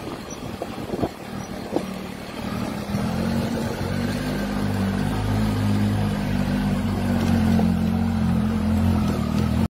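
Motorcycle engine running as the bike rides a rough gravel road, with a couple of sharp knocks in the first two seconds. From about three seconds in the engine is louder and steady, and the sound cuts off abruptly at the end.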